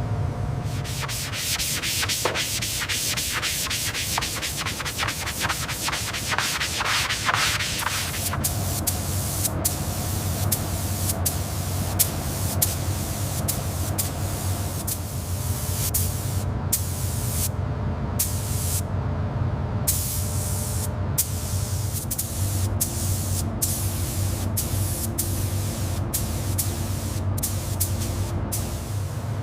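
Abrasive rubbing against a hard surface in hissy strokes, quick and close together for the first several seconds, then slower separate strokes about one a second. A steady low hum runs underneath.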